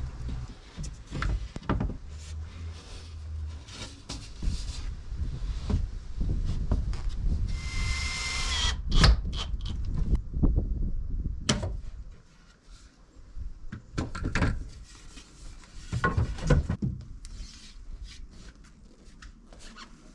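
Knocks and clatter of timber panels and hand tools being handled, with one short power-tool whir of about a second, about eight seconds in.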